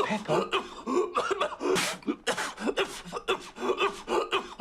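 A man coughing over and over in a fit: a dense string of short, harsh vocal bursts.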